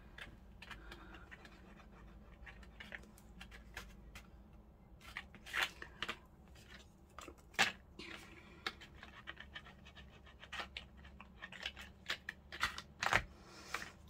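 Paper and card being handled on a craft table: scattered soft taps and rustles, a few of them sharper, over a faint steady low hum.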